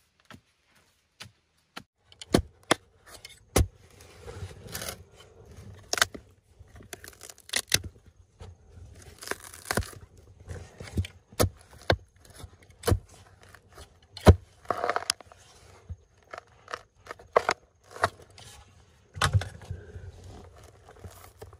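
Wooden digging pole striking and prying into stony soil at the bottom of a pit, with loose earth and pebbles crumbling and trickling down. Sharp knocks come irregularly, about one a second, beginning about two seconds in.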